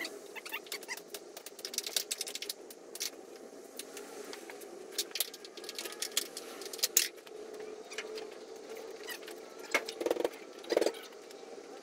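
Irregular clicks, taps and scrapes of a windshield glass being worked out of its rubber weatherstrip on a 1994 Daihatsu Hijet cab and handled with a suction-cup lifter.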